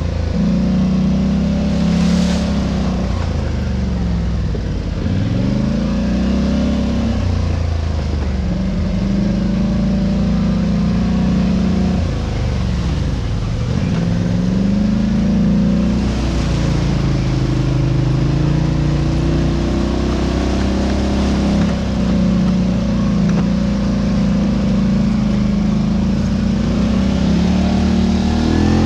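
A vehicle engine running under constantly changing throttle, its pitch rising and falling, dropping low twice before climbing again.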